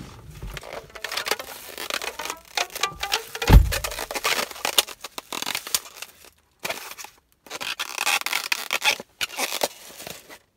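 Crinkling plastic carrier bag and squeaky scraping of a polystyrene foam takeaway box as it is handled and opened, with a dull thump about three and a half seconds in.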